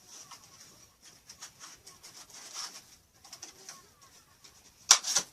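Rustling and crinkling of packaging as an item is pushed and worked back into its bag or box, with a short, louder burst of rustling near the end.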